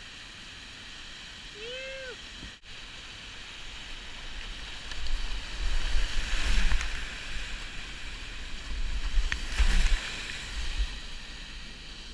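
Whitewater of a steep river rapid rushing steadily, with a short pitched call about 2 s in. From about 5 s the kayak runs the rapid itself, and water crashes over the boat and camera in loud rumbling surges and splashes until near the end.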